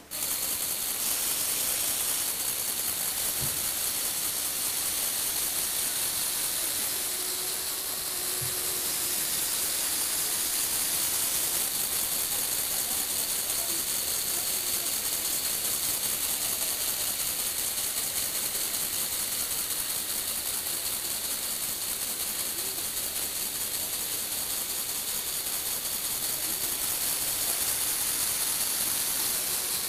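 Lego Technic electric motors and plastic gearing running steadily, a continuous whirring hiss, as the mechanism tilts and turns the model car on its platform.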